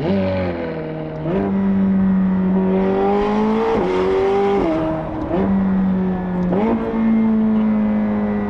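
McLaren 765LT's twin-turbo V8, fitted with IPE downpipes, running under way with the roof closed. The engine note holds steady for stretches and shifts pitch several times: a sharp jump right at the start, a slow climb around the middle, then quick dips and rises.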